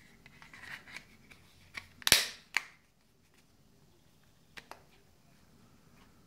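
Smartphone being pressed into a hard snap-on back case: rubbing and light clicks, then a loud snap about two seconds in and a second click half a second later as the case clips on, followed by two small ticks.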